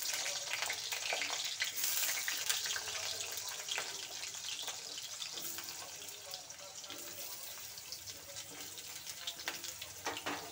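Potato chunks frying in hot mustard oil in a kadai: a steady sizzle full of fine crackles, loudest at the start just after they go in and slowly easing.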